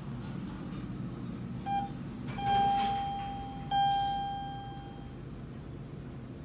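Urban traction elevator's hall lantern chime sounding twice at the same pitch, about a second and a half apart, each stroke ringing and fading, after a short blip: the down-direction arrival signal, with the red lantern lit.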